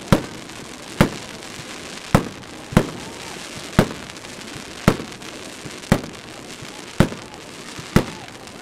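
Aerial fireworks bursting overhead: a sharp bang about once a second, nine in all.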